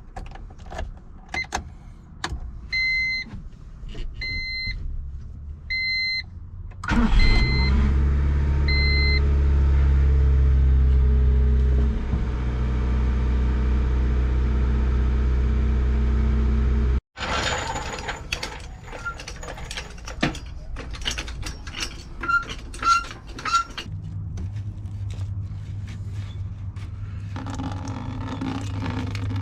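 A car's electronic chime beeps every second and a half or so, with a few clicks. About seven seconds in, the Honda CRX's engine starts and runs loud and steady for about ten seconds, then cuts off suddenly. Afterwards come scattered clicks and taps, and from about twenty-four seconds a steady low hum.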